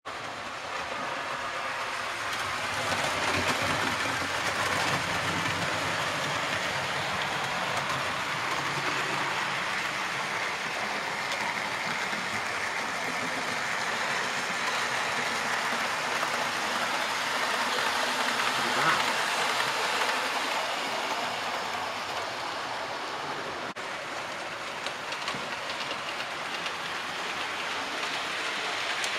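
Model trains running on the layout's track: a steady rolling hiss and rattle of wheels and motors, with light clicking over the rails.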